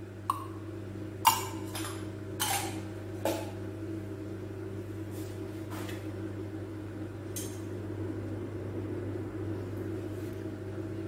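A steel spoon clinking against a steel cup and the kadai as ghee is spooned into the pan: several sharp clinks in the first few seconds, then a couple of fainter ones, over a steady low hum.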